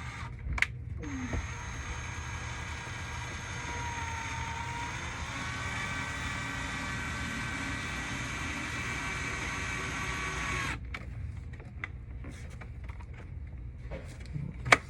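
Power drill running steadily for about ten seconds, its motor whine shifting up in pitch partway through, then stopping abruptly; a sharp click near the end.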